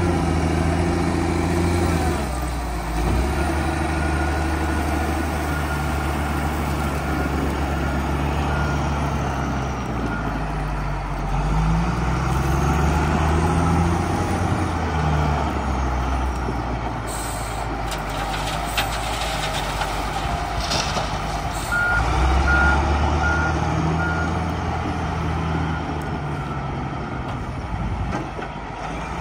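Caterpillar 966F wheel loader's diesel engine working, its revs rising and falling repeatedly as it is put under load. About two-thirds of the way through, its reversing alarm beeps about five times.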